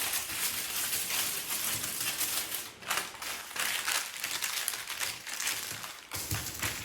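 Fingers tapping rapidly on small objects as a foley imitation of a crackling fire: a dense patter of small clicks, with a brief dip just before three seconds.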